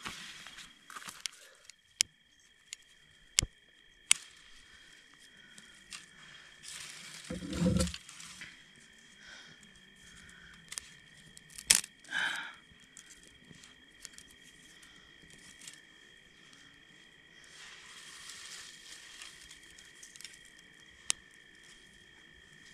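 A small fire of dry twigs and brush being lit: scattered sharp snaps and crackles and some rustling as the twigs are handled and catch. Under it runs a steady, high, two-pitched chirring of night insects.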